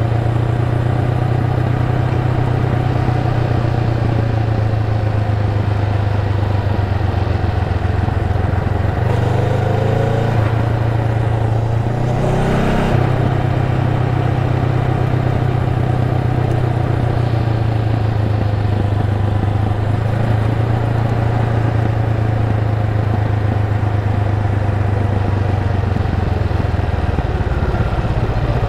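Honda Rebel 500's parallel-twin engine running steadily under way, heard from the rider's seat. The engine note changes briefly about nine seconds in, and falls near the end.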